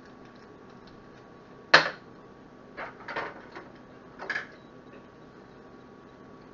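Knife work on a large Spanish onion on a cutting board: one sharp knock on the board a little under two seconds in, then a few softer scrapes and clicks as the knife works at the papery skin.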